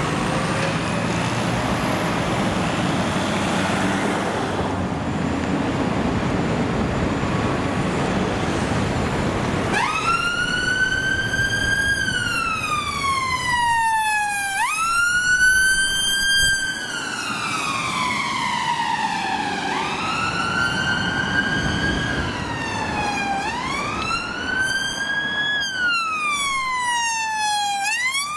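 Emergency vehicle siren in wail mode, starting about ten seconds in: a pitch that rises quickly and falls slowly, repeating every three to five seconds. Before it, steady road noise.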